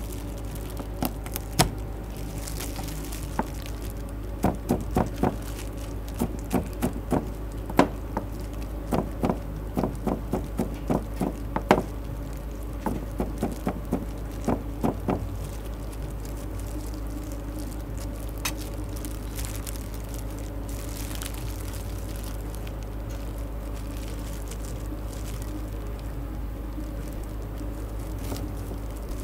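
Sharp knocks in quick clusters of a few strokes each, coming and going through the first half, over a steady low hum; the knocks die away about halfway through, leaving only the hum.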